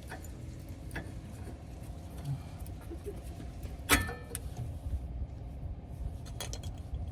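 Metal brake parts being handled: a few light clicks and one sharp ringing metallic clink about four seconds in, over a steady low rumble.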